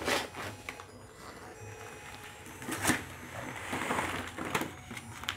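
Wrapping paper being torn and crumpled off a gift box by a small child: rustling and crinkling, with sharp rips near the start and about three seconds in.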